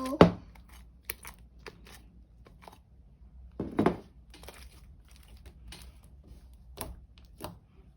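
Sticky homemade glue slime being pulled out of a bowl and worked by hand, giving scattered small sticky clicks and crackles, with two louder ones about a quarter second in and near four seconds. The slime is still a little too sticky.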